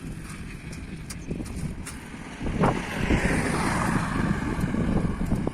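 Wind rumbling on the microphone, with a rushing noise that swells about halfway through and tails off, like a vehicle passing on the road.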